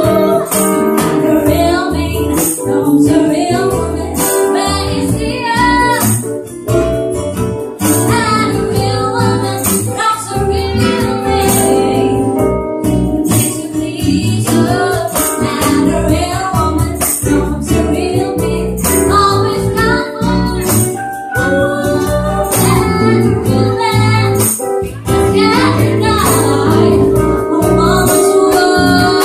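A live band playing a slow song: a woman singing, with gliding and held notes, over acoustic guitar, electric bass and keyboard, with a light steady percussion beat.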